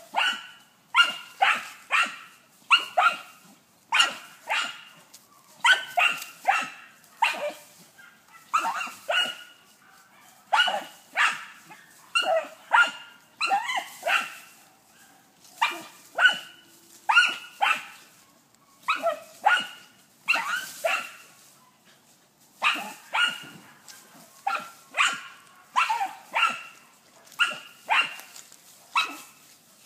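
Deutscher Jagdterrier barking steadily at a wild boar, baying it: short, sharp barks about one to two a second, often in pairs or threes, with brief pauses.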